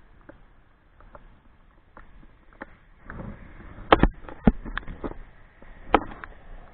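Sharp knocks and clicks close to the microphone, a few loud ones about four seconds in and another near six seconds, over light scattered ticks.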